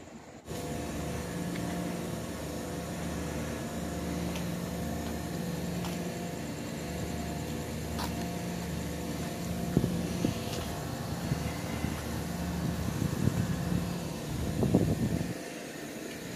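Steady mechanical hum of running machinery: a low drone with a few steady tones over it. A few faint clicks and a brief louder scuffing noise come near the end.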